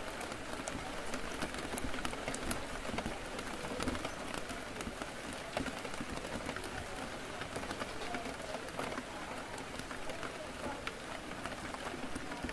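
Steady rain on a window pane, with many small drop ticks throughout, over a low murmur of café chatter.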